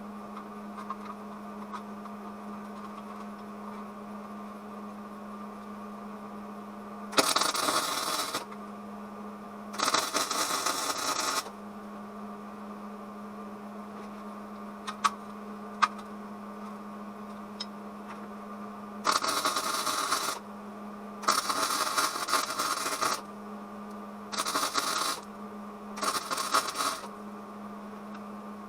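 Wire-feed welder arc crackling in six short welding runs of about one to two seconds each, with a steady electrical hum in the gaps between them.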